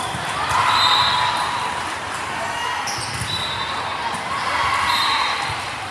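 Athletic shoes squeaking on a gym floor a few times during play, with voices echoing in the hall.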